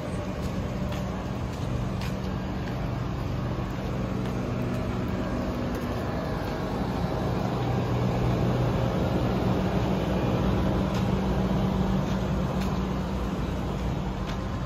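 An engine running out of sight with a steady low hum over street noise, swelling a little louder toward the middle.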